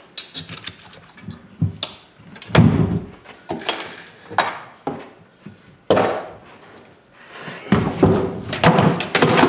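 Repeated knocks and heavy thuds of a boiled longhorn bull skull being handled and bumped against the sides of a plastic utility sink, with the heaviest thumps about two and a half seconds in and again near the end.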